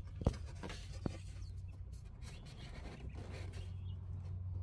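Faint rubbing and handling noises of a fuel hose being worked onto a fitting by hand, with two sharp clicks in the first second or so, over a steady low hum.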